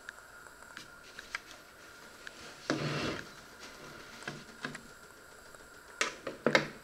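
Kitchen handling noises: scattered light clicks, a short scraping rustle about three seconds in, and two sharper knocks near the end.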